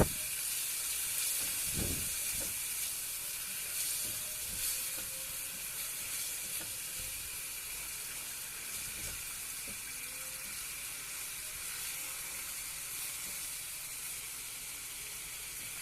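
Scallops sizzling as they stir-fry in hot olive oil in a pan, a steady hiss that eases slightly, with a few faint knocks.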